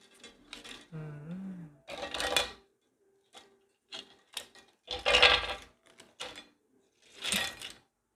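Plastic and metal steering-column parts handled and taken apart by hand: a string of short clicks and clattering rattles, the loudest about five seconds in.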